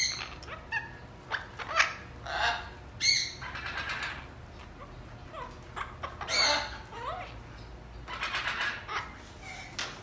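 Parrots in a bird shop squawking and chattering in about ten short calls, some sliding up or down in pitch. Among them is a Derbyan parakeet talking.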